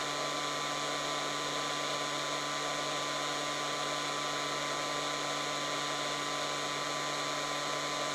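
Heat gun running steadily at full heat, its fan motor giving a constant whine over the rush of air, while it heats an aluminum LED backlight strip to melt the solder under an LED.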